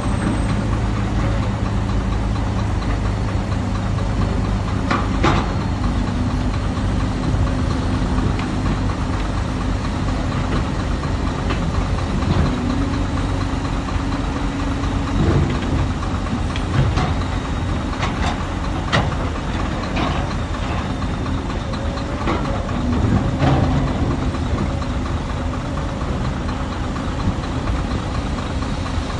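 Hyundai excavator's diesel engine running steadily, its note shifting now and then, with scattered sharp knocks throughout.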